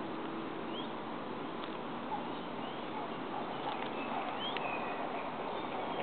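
Small birds chirping now and then over a steady outdoor hiss: short, quick rising calls every second or so.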